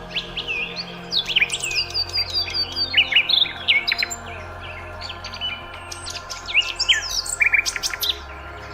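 Songbirds chirping: rapid runs of short, sharp, sweeping notes with a brief lull in the middle, over a faint steady low hum.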